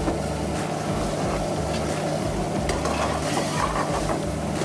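Creamy butter chicken gravy sizzling and bubbling in a pan on a gas flame while a steel ladle stirs it, with a few faint scrapes of the ladle. A steady low hum runs under it.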